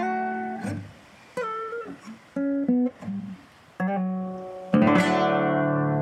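Acoustic guitar playing short plucked chords separated by brief pauses, then a full strummed chord near the end that is left to ring out.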